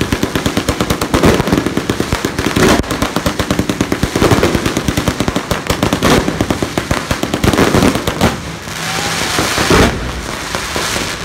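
Strings of firecrackers going off in a dense, rapid crackle with heavier clusters of bangs, over the hiss of ground fountain fireworks spraying sparks. About eight seconds in the crackling thins out, leaving mostly the fountains' hiss with scattered cracks.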